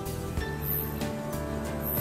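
Background music with held, sustained notes.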